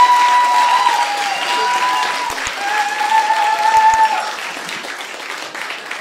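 Audience applauding a comedian's entrance, with a few long held high tones over the clapping; the applause dies down toward the end.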